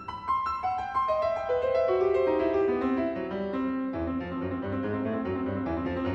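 Piano background music: a falling run of single notes over the first three seconds, then fuller held chords over a low bass from about four seconds in.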